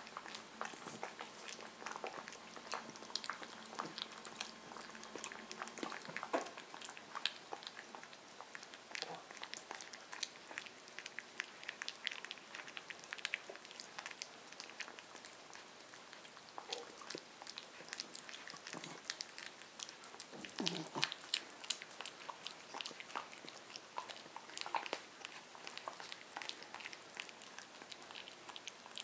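Corgi puppy lapping and eating soft mushy food from a ceramic bowl: a steady run of small, irregular licking and smacking clicks.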